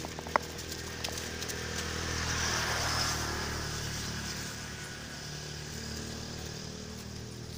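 Steady low motor-vehicle engine hum, with a louder rushing swell around the middle that fades away, and one sharp click near the start.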